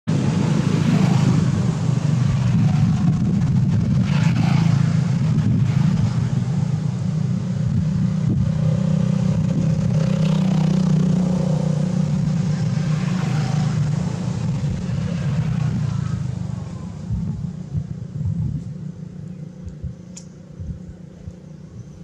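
A motor vehicle engine running steadily, a loud low rumble that fades away about three-quarters of the way through.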